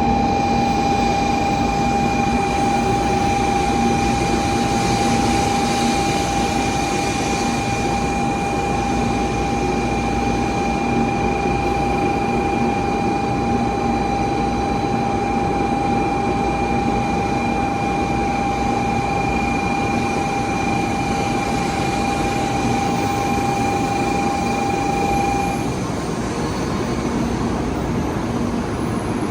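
Train noise at a station: a steady rumble with a steady high whine running over it, which stops about 26 seconds in.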